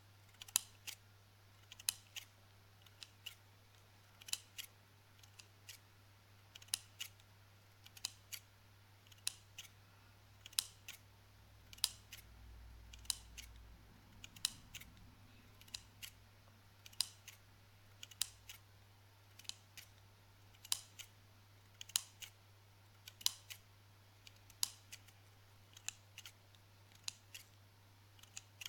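Scissors snipping again and again, each close of the metal blades giving a crisp click, often in quick pairs, about once a second.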